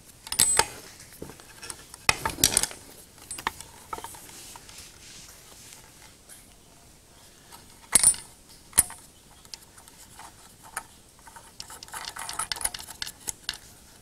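Small clicks and clinks of hands working inside an LED flood light's wiring box, threading the nut onto the newly fitted photocell and moving its wires. The sharpest clicks come about half a second, two seconds and eight seconds in, with lighter rattling near the end.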